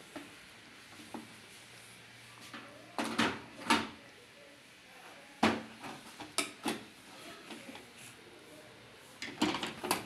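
Hard plastic knocks and clicks as a washer-dryer's control panel housing and display board are handled and taken apart. Scattered single knocks, the loudest a little after three seconds and about five and a half seconds in, with a quick cluster near the end.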